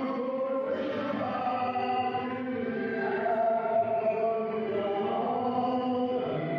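Chanted vocal music, voices holding long notes in a slow melody.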